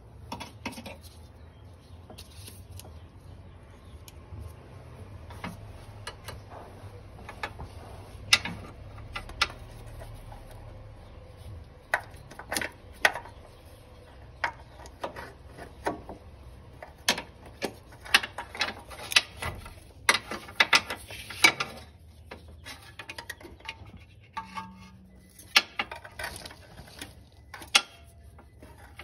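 Metal band-type filter wrench and hand working at a spin-on oil filter to loosen it: scattered sharp clicks and metallic clinks at an uneven pace, coming thickest in the middle stretch, with several quick runs of them.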